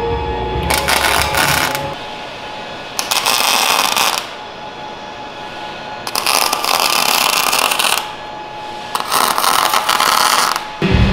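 MIG welder crackling in four short bursts of about one to two seconds each, welding bolts onto a steel truck frame as studs.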